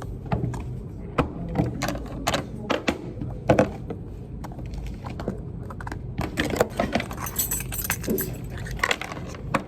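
Irregular light clicks and clinks of tableware being handled, metal and dishes knocking together, with sharper knocks about 1.2, 3.5 and 9 seconds in.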